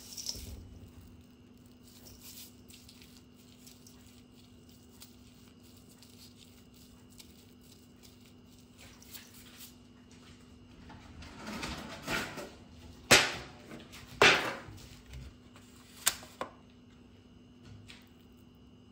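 Soft rustling of hands working shrimp through a breadcrumb coating in a stainless steel bowl, then a few sharp taps and knocks against the metal bowls about twelve to sixteen seconds in, the loudest near thirteen seconds. A low steady hum runs underneath.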